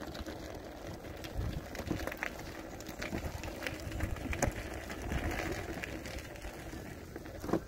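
Tesla V2 electric unicycle rolling along a dirt trail: a steady low rumble of the tyre on dirt and gravel, with scattered clicks and knocks as the wheel and rider jolt over the uneven ground.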